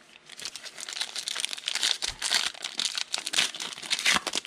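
Foil trading-card pack being torn open by hand: a dense, continuous crinkle and crackle of the foil wrapper, with tearing.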